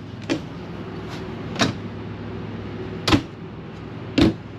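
A few sharp clicks and knocks from kitchen cabinet doors being handled, about five in four seconds, the loudest two near the end, over a low steady hum.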